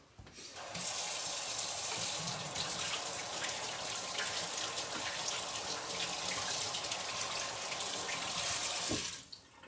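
Kitchen sink tap running while hands are washed under it: a steady rush of water that starts about a second in and is shut off near the end.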